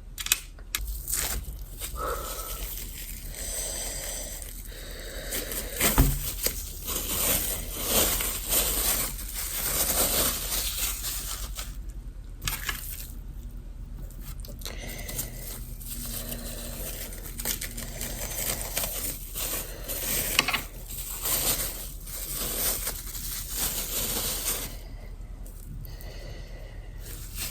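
Irregular scraping, rustling and crinkling with sharp clicks and knocks, like food, packaging and tableware being handled; one louder knock about six seconds in.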